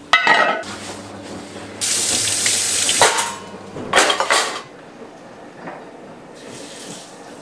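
Kitchen tap running water into the sink in two short runs, the first over a second long and the second about half as long, after a short clatter at the start.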